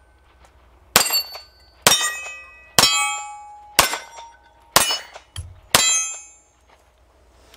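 Walther CCP M2 pistol fired six times, about one shot a second. Each shot is followed by the ringing clang of a steel target being hit.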